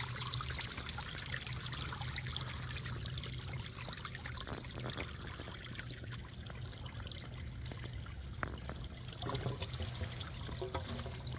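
Water pouring and splashing steadily out of a sump pump discharge outlet, driven by two Liberty sump pumps that are still moving quite a bit of groundwater. A few sharper splashes come in the second half.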